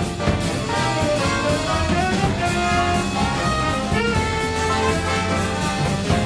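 Music with brass instruments playing held notes over a steady beat.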